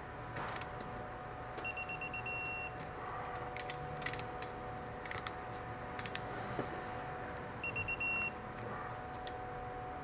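Digital torque wrench beeping while lug-size brake bolts are tightened to a set 74 foot-pounds. Each time, a quick run of short high beeps ends in a longer steady beep as the set torque is reached. This happens twice, about six seconds apart, with a few sharp clicks of the wrench and tools in between.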